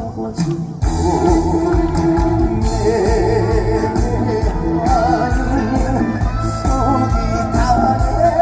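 Live trot song amplified through a concert sound system: a male voice singing over the band with a steady beat, after a brief break in the music right at the start.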